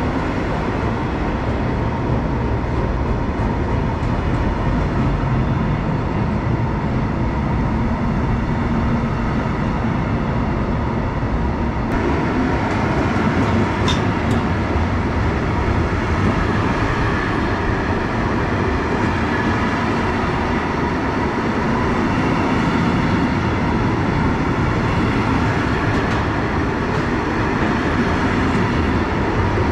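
Freight train passing, with a steady rumble of wheels on the rails and a few faint clicks.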